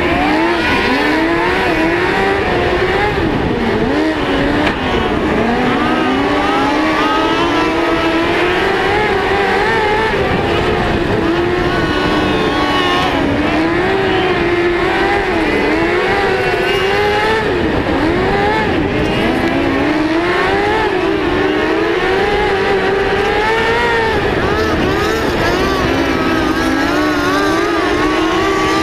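A mini sprint's engine heard from on board, racing around a dirt track. The revs rise and fall continuously as the car accelerates down the straights and lifts for the corners.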